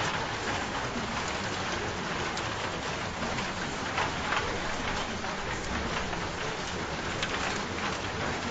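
Steady rain falling on a surface, an even hiss dotted with fine drop patter.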